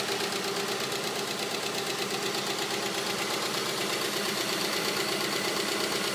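Subaru EJ22T turbocharged flat-four engine running steadily at idle with a rapid, regular ticking from the valvetrain: hydraulic lifter noise, which the owner hears loudest on the driver's side.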